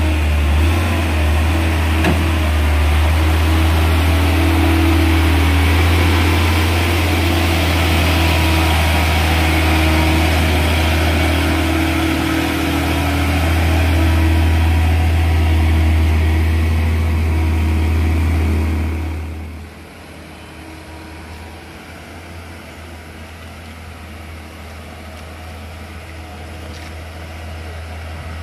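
Diesel engine of a loaded Hino 500 dump truck pulling uphill as it passes close by, a loud steady low drone. About 19 s in the sound drops off sharply, leaving a fainter steady engine sound.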